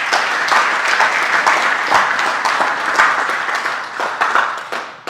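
Audience applauding: a dense patter of many hands clapping at once, thinning out and fading near the end.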